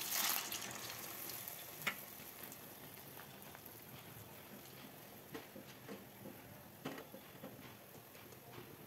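Hot oil sizzling loudly as a freshly shaped urad dal vada goes into a pan of oil for deep-frying. The hiss eases over the next second or so into a steady frying sizzle, with a few sharp clicks.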